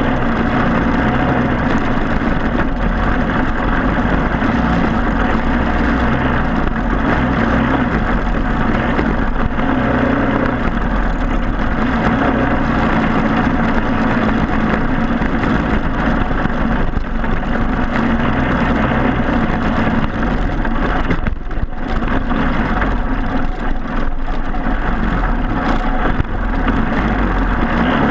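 Briggs & Stratton Animal single-cylinder four-stroke racing kart engine running steadily, with a brief drop in sound about two-thirds of the way through.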